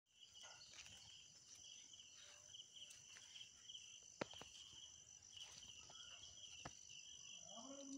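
Faint chorus of insects trilling in a rice field, a steady high pulsing trill, with a single sharp click about four seconds in.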